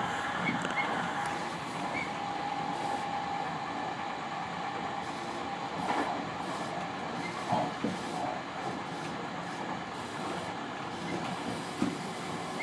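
Tobu 50000-series electric train running at speed, heard from inside the front car: a steady running noise, with a thin steady tone over the first few seconds and a few scattered knocks from the wheels.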